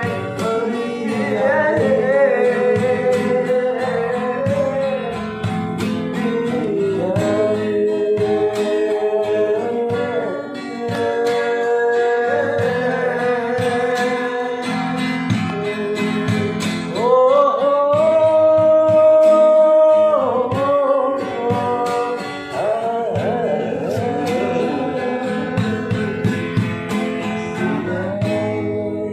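A voice singing a slow, melismatic melody to acoustic guitar accompaniment, with one long, higher held note a little past halfway.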